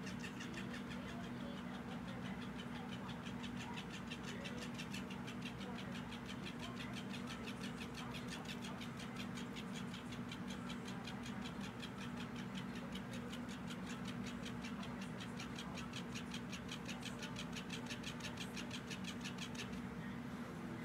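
Robotic fish toy's motor-driven tail ticking rapidly and evenly as it runs, stopping about a second before the end, over a low steady hum.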